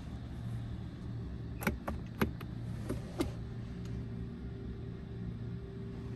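Cabin of a 2023 Genesis G90: a quick run of sharp clicks, like controls being pressed, then an electric motor starts with a steady whine about three seconds in, typical of a power window or seat motor.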